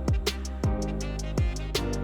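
Background music with a beat: deep kick-drum hits that drop in pitch, ticking hi-hats and held instrumental tones.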